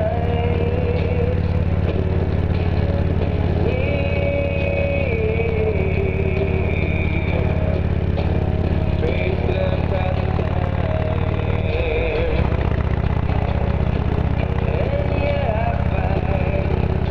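Motorcycle engine running steadily under way, with a brief dip like a gear change about twelve seconds in. Music with a melody plays over it, less loud than the engine, from the bike's 2-inch metal-housed speakers.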